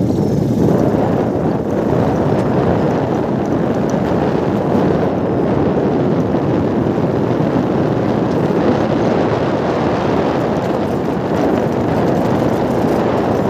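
Wind buffeting the microphone: a loud, steady rush with no clear pitch.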